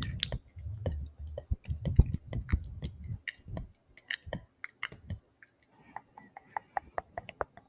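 Close-miked ASMR mouth sounds: rapid wet tongue clicks and lip smacks. They are dense and mixed with low thuds for the first three seconds or so, then sparser.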